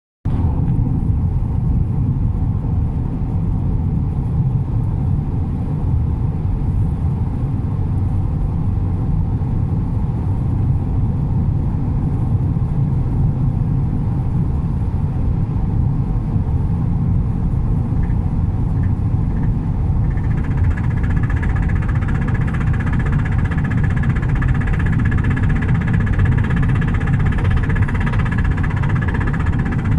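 Cabin noise of a 2018 Volkswagen Tiguan at high speed: a steady low road and engine rumble, joined about two-thirds of the way through by a steady higher-pitched noise. This is the cabin noise the owner hears only above 160 km/h and has noticed since a recent 30,000 km service.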